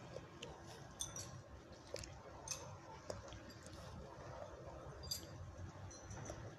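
Faint scattered crackles and rustles of dry fallen leaves as a cat moves over them and paws at a tree trunk, with a few short high chirps.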